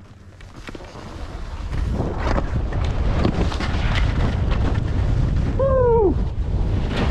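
Wind rushing over the camera microphone and skis scraping and chattering on snow as a skier gains speed downhill, getting louder about two seconds in. A short falling-pitched sound is heard near the end.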